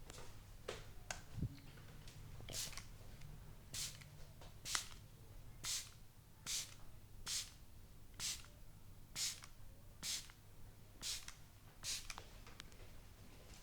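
Massage hand strokes on skin and hair, about eleven short swishing rubs at an even pace of roughly one a second, after a few faint clicks, over a low steady hum.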